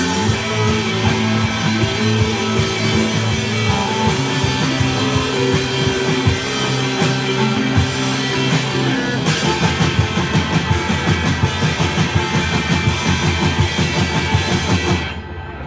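Live rock band playing electric guitars and a drum kit. About nine seconds in the drums switch to fast, even hits, and the song stops suddenly about a second before the end.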